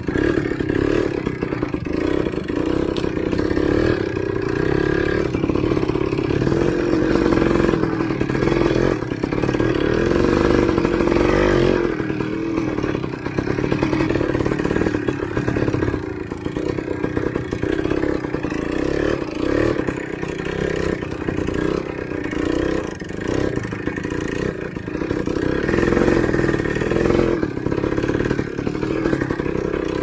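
Enduro motorcycle engine running with the throttle rising and falling, along with repeated clatter and knocks from the bike working over rough ground.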